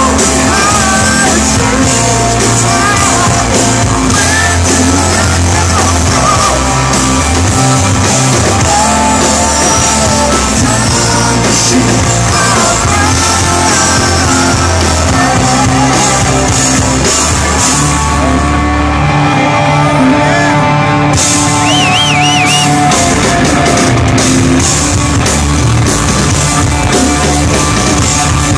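Rock band playing live and loud: electric guitar, bass and drums, with a melodic line that bends and wavers in pitch.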